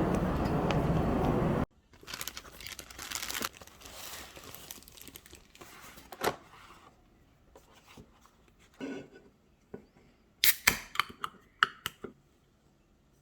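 Busy shop background noise that cuts off suddenly after about a second and a half, then soft rustling, crinkling and tearing of packaging. Near the end comes a quick run of sharp clicks.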